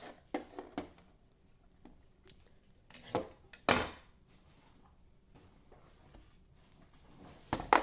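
Fire alarm units and their mounting brackets being moved about and set down: a few scattered knocks and clatters, the loudest a little under four seconds in, with two more near the end.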